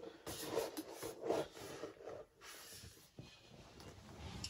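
Faint, irregular rustling and handling noises with a few soft knocks, as objects are shifted about by hand.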